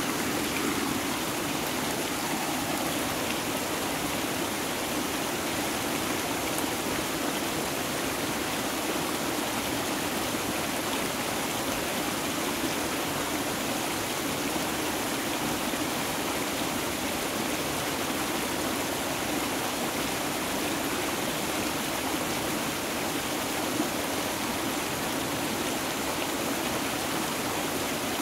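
Flowing stream water, a steady rush.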